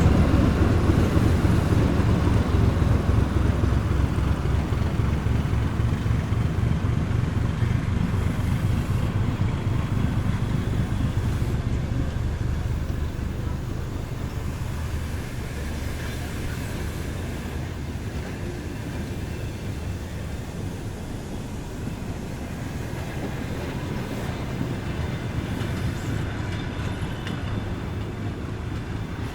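ChME3 shunting locomotive's diesel engine running with a low rumble as it hauls wagons away, fading over the first half, then a steady, quieter rumble.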